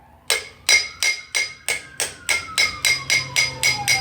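Hammer tapping a new grease seal into a front rotor hub through a driver cone: a run of sharp, ringing metal strikes, about three a second and getting slightly quicker, starting just after the beginning.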